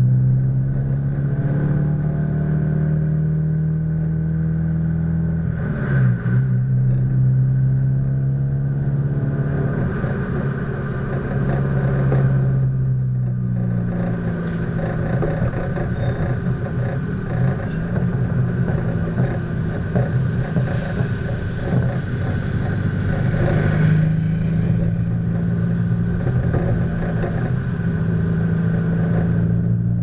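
Subaru Impreza WRX STI's turbocharged flat-four engine heard through an A.R.T. titanium aftermarket exhaust while driving. The note climbs as the car accelerates, breaks for a gear change about six seconds in and again around 13 s, then settles to a steady cruise. The sound is somewhat muffled by the camera's waterproof case.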